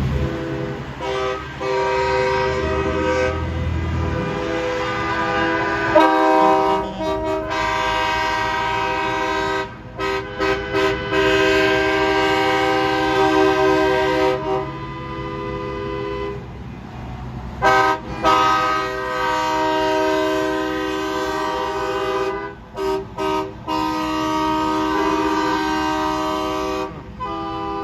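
Truck horns blowing as parade trucks pass, several horns sounding together in a chord. They are mostly held as long blasts, with quick chopped toots a few times, over the low rumble of truck engines.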